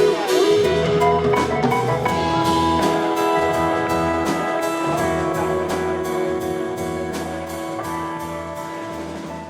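Background music with a steady drum beat, slowly fading out.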